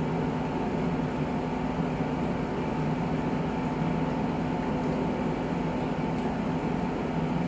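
A steady mechanical hum with a few held tones and an even hiss, unchanging throughout.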